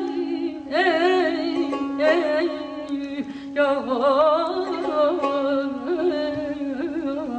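Music in a Middle Eastern style: a steady low drone note under a melody line that wavers with heavy vibrato and ornamented glides.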